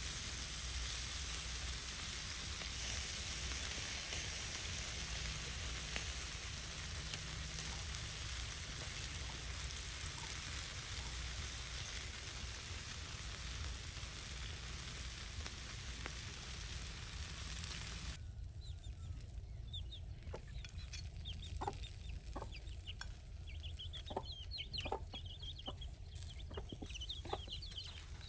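Pork ribs sizzling over heat, a steady hiss. About two-thirds of the way through it cuts off suddenly, replaced by scattered sharp knocks and short, high chirping calls.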